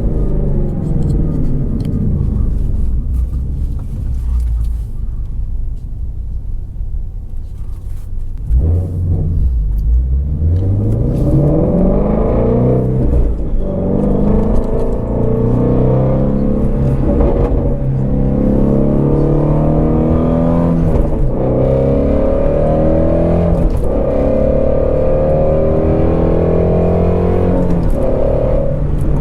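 Ford Shelby GT350R's 5.2-litre flat-plane-crank V8 under way. Revs fall at first and stay low and steady for a few seconds. From about eight seconds in the engine accelerates, revs climbing and dropping sharply several times as it shifts up through the gears.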